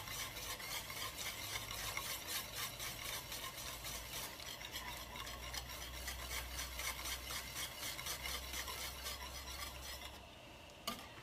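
A wire whisk stirring a thick ube halaya mixture in a stainless steel pan, scraping around the pan in quick, even strokes. The mixture is thickening and is kept from spattering by continuous stirring. The stirring stops about ten seconds in, and a single click follows near the end.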